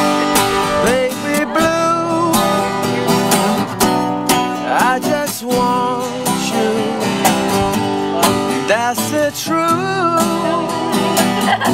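Acoustic country jam: acoustic guitars strumming, with a guitar played flat on the lap sliding and wavering between notes several times.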